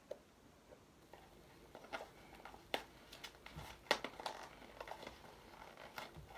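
Packaging being cut open and unwrapped by hand with scissors: scattered short snips, clicks and crinkles, busiest and loudest a few seconds in.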